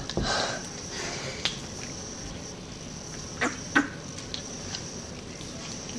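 Plastic water bottle being handled and drunk from: scattered crinkles and clicks of the thin plastic, two sharper ones about three and a half seconds in, over a faint steady high-pitched whine.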